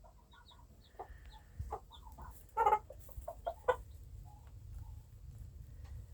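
Chickens clucking in short, scattered calls, the loudest about two and a half seconds in, over a low rumble.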